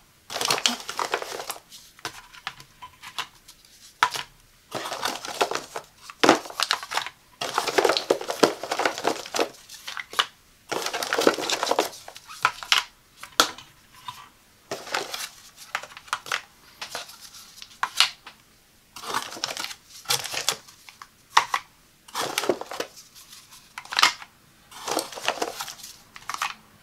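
Plastic K-Cup coffee pods being slid one by one into the wire slots of a metal pod carousel: repeated short bursts of plastic rustling and sharp clicks, one every second or two.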